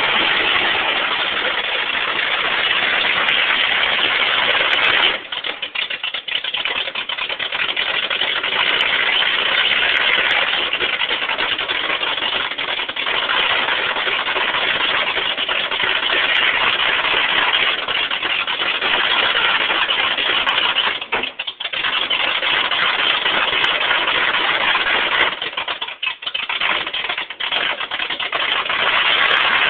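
Lifted Chevy truck's engine running hard under load as the truck climbs onto a trailer on its big loader tires. The engine note drops away briefly about five seconds in, again around twenty-one seconds, and in several short dips near the end.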